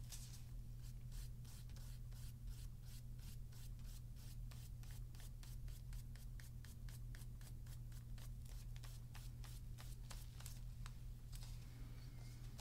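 Faint, quick strokes of a flat paintbrush brushing paint onto paper, about four strokes a second, thinning out near the end, over a steady low hum.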